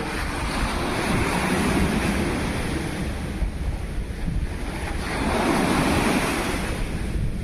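Waves of the Sea of Azov washing in, two swells of rushing surf about four seconds apart, with wind rumbling on the microphone.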